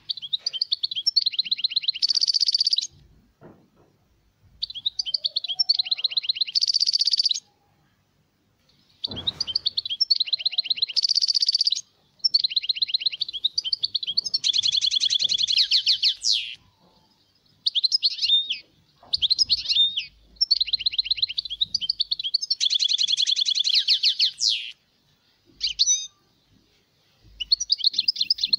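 European goldfinch singing: phrases of fast twittering trills and buzzy notes, each a second or three long, separated by short pauses.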